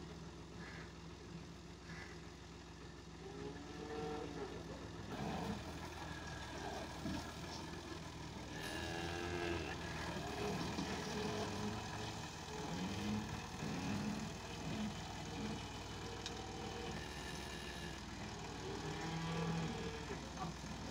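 Massey Ferguson 360 tractor's diesel engine idling steadily, with cattle mooing several times over it.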